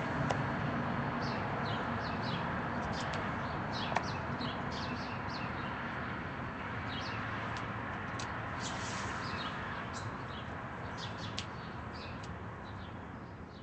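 Small birds chirping over a steady outdoor background hiss, fading out near the end.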